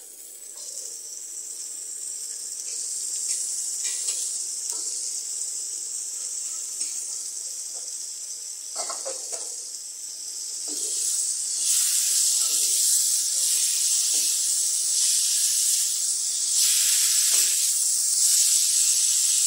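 Chopped roselle leaves sizzling in hot oil in a steel wok, a steady high hiss that grows louder about halfway through.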